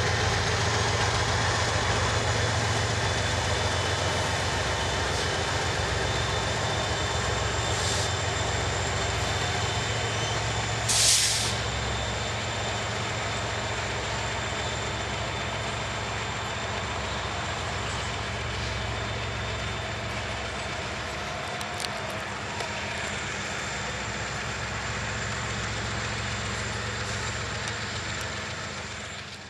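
Freight train of tank cars rolling past behind Kansas City Southern diesel locomotives. The locomotives' low engine drone slowly fades as they pull away, and there is a short, sharp hiss about eleven seconds in.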